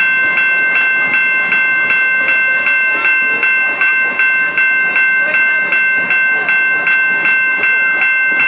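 Level-crossing warning bells ringing steadily at about two to three strokes a second, over the running noise and wheel clicks of passenger cars rolling past.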